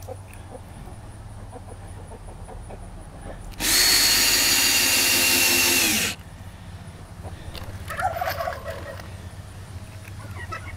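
Cordless drill driving a screw through a door hinge into wood, running steadily for about two and a half seconds from about three and a half seconds in, its pitch dipping just before it stops. A turkey gobbles briefly about eight seconds in.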